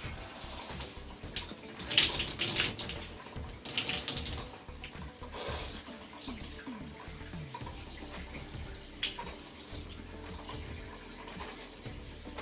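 Water running steadily and splashing as hair is rinsed under it, with louder surges about two, four and five and a half seconds in.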